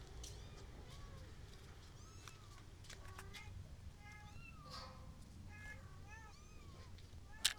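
Kittens mewing, a run of short high calls that come every second or so from about two seconds in. There is a sharp click near the end.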